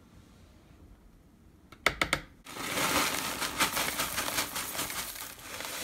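A few sharp knocks about two seconds in, then crinkling and rustling as a bunch of fresh cilantro is crammed into a Vitamix blender jar packed with fruit.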